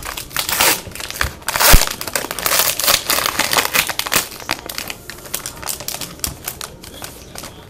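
A trading card pack's plastic wrapper being ripped open and crinkled by hand, a dense irregular crackling with a louder tearing burst nearly two seconds in.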